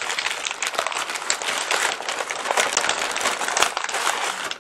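Butcher paper soaked through with rib fat and juices crinkling and rustling as it is unfolded by hand from a rack of ribs, with a run of small crackles.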